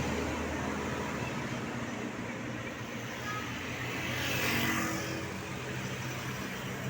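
Road traffic: a steady low engine drone, with one vehicle passing by that swells and fades a little past the middle.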